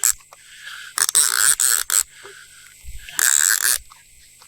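Fishing reel clicker buzzing in two short bursts as a hooked striper takes line off the reel.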